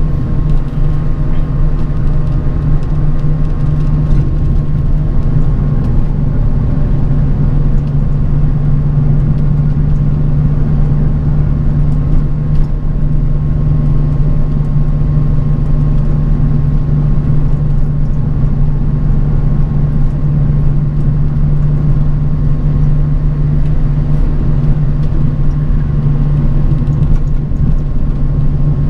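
Bus travelling at a steady speed, heard from inside: a constant low engine drone with road rumble, and a faint steady whine above it.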